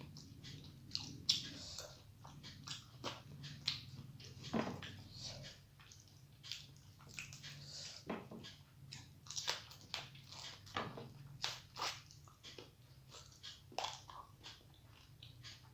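Close-up chewing and eating mouth sounds of a person eating a meal: many short, irregular sounds one after another.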